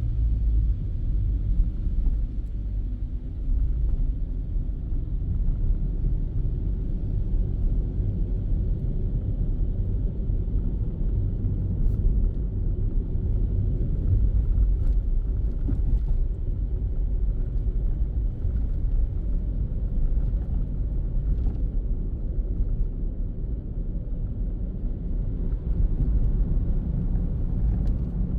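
Car driving in city traffic: a steady low rumble of engine and road noise, with a few faint clicks.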